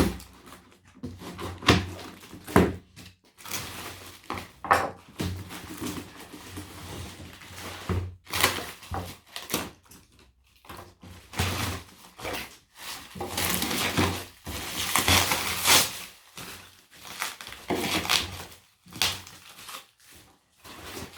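A heavily taped cardboard parcel being torn open by hand: irregular tearing and rustling of tape and cardboard, with occasional thunks as the box is handled.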